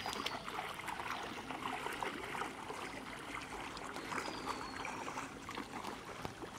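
People wading through knee-deep floodwater: a steady run of splashing and sloshing as legs push through the water step after step.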